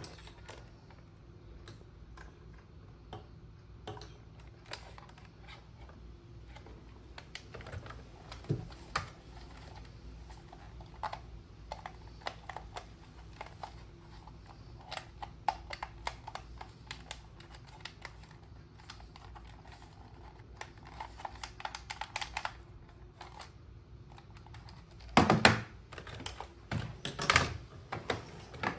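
Irregular light clicks and taps of hard plastic being handled, with a few louder knocks and clatters near the end.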